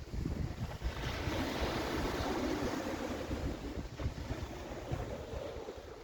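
Wind buffeting the microphone in gusts, over the broad hiss of waves washing on the shore, which swells about a second in.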